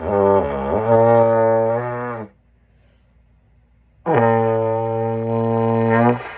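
Bass trombone playing two low held notes, each about two seconds long with a pause between; the first scoops and wobbles in pitch before settling, the second is steady.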